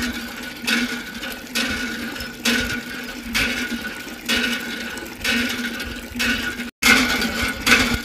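Water spurting from a miniature hand pump's spout and splashing into a basin, surging a little faster than once a second in time with the handle strokes.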